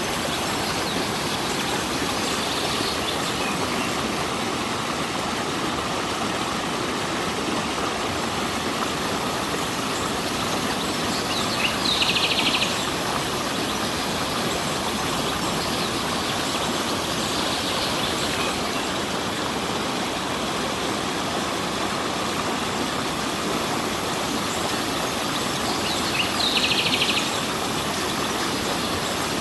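Steady rushing of a flowing stream, with a short, high, rapidly pulsed bird call standing out twice, about halfway through and near the end.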